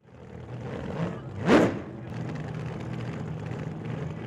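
Custom Thunderbird roadster's 502 Chevy V8 running at idle, with one sharp throttle blip about a second and a half in.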